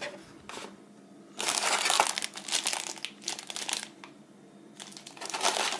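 Packaging crinkling as items are handled in an unboxing: a brief rustle near the start, a longer stretch of crinkling from about a second and a half to nearly four seconds, then more near the end.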